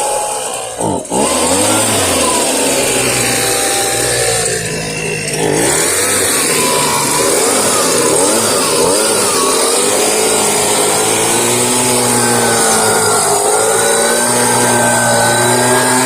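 Husqvarna 125B handheld gas leaf blower, a 28cc two-stroke engine, running hard to blow debris out of a gutter, with a rushing air hiss. Its pitch wanders up and down with the throttle, with a brief dip about a second in.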